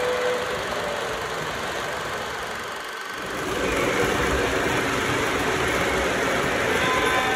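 O gauge model freight train rolling along three-rail track, a steady clattering rumble of wheels and cars. It dips briefly about three seconds in and then comes back louder.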